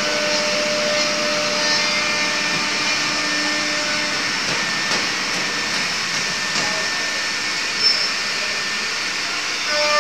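CNC wood router running: the spindle's steady whine under the hiss of the bit cutting into wood.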